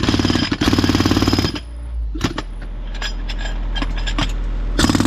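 Jackhammer hammering in rapid strokes, working a utility vault lid loose. It runs for about a second and a half with a brief break, stops, then fires again in a short burst near the end. A low steady hum and scattered clicks fill the gap.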